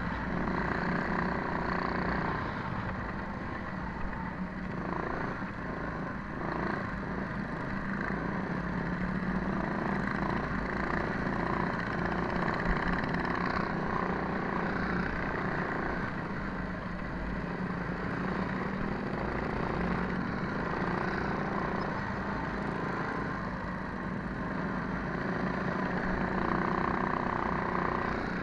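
Minibike's small single-cylinder engine running steadily under throttle, its pitch wavering a little as the rider eases on and off, heard from on board with wind noise and the rumble of riding over rough dirt.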